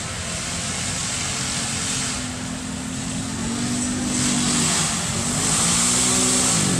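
ATV engine running hard as the quad races along a mud track, its pitch climbing in steps and then dropping sharply near the end.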